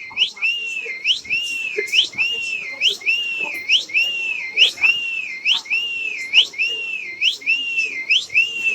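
A squeaky, whistle-like electronic chirp played through a phone speaker, repeating in an even loop about twice a second, each chirp a quick upward sweep that then sags back down.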